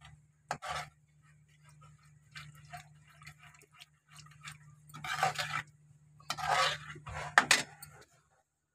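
Steel slotted spoon stirring thick gravy in a pan, scraping and knocking against the pan in short strokes, the loudest about five to seven and a half seconds in, over a faint steady hum.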